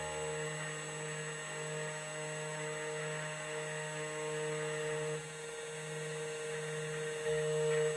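2M2 Tank2 CNC key cutting machine running, a steady motor hum while it mills the cuts into a Toyota key blank, dipping slightly about five seconds in.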